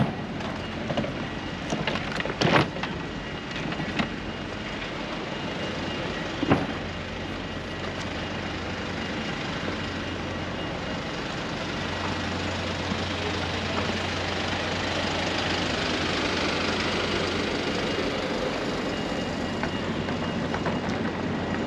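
City street traffic: a vehicle passing close by, its steady running noise swelling in the second half. A few sharp knocks come in the first few seconds.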